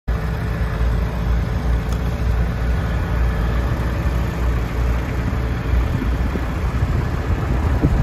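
Fordson N tractor's four-cylinder side-valve engine running steadily at low revs, a low, even rumble.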